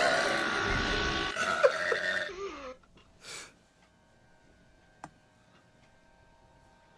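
Long, loud burps with a wavering pitch for the first two and a half seconds or so, then quiet with only a faint steady hum, a brief rustle and a single click.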